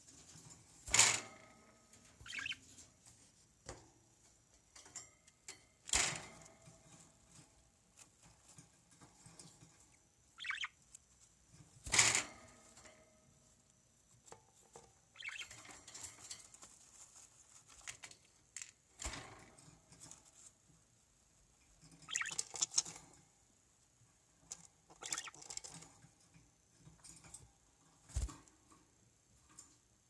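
Budgerigar hen shifting about in a wooden nest box on wood shavings: scattered knocks and scratching on the wood, with a couple of short chirps.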